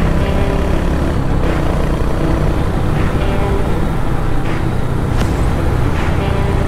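Royal Enfield Hunter 350's single-cylinder engine running steadily as the motorcycle cruises, with wind noise over the rider's camera.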